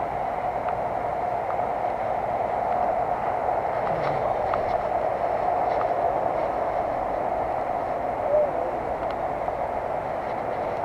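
Steady rushing noise of water coming off a stone dam, with a few faint ticks.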